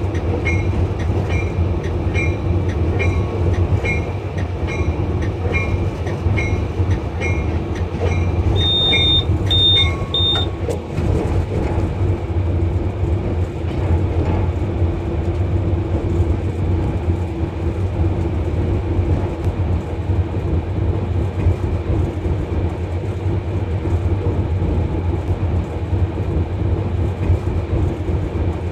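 Cab sound of a ZCU-30 diesel-electric locomotive: the engine running with a steady low drone as the train rolls slowly. For about the first ten seconds an electronic beeper in the cab sounds about twice a second. It ends with a few higher beeps and then stops.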